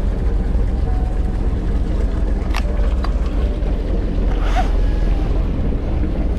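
Fishing boat's engine running steadily, a deep rumble, with a sharp click about two and a half seconds in.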